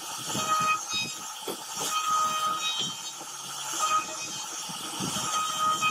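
CNC router spindle running with its bit carving a relief pattern into a wooden panel: a steady cutting noise with a high whine that comes and goes as the bit moves through the wood.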